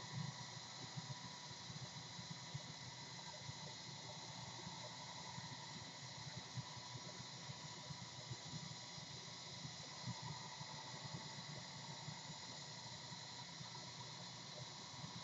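Steady faint hiss with a soft low crackle underneath, without any distinct event: background noise.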